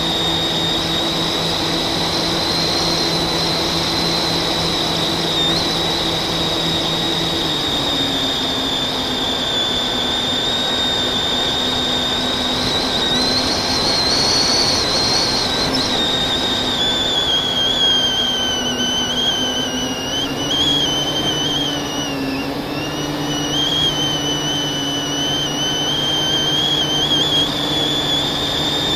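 FPV racing drone's brushless motors and propellers whining at a high pitch that wavers with the throttle, rising briefly about halfway and then dipping and wobbling, over steady rushing air noise.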